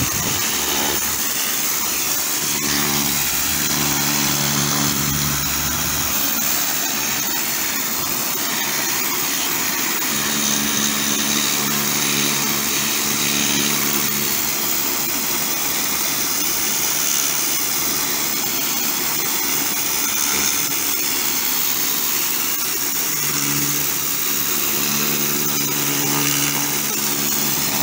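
Kärcher high-pressure washer running, its high-pressure jet hissing steadily as it strips built-up dirt off a concrete wall. The machine's motor hum rises to a clear pitched drone in three stretches.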